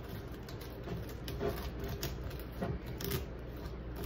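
Fish-filleting knife cutting a fillet off a sea robin along the backbone, with faint scraping and scattered clicks as the blade passes over the bones. A steady low hum runs underneath.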